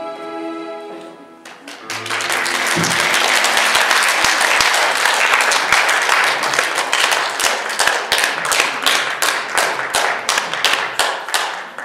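The final chord of a song's backing music ends about a second and a half in, and the audience breaks into applause, which grows more even and rhythmic in the second half before fading near the end.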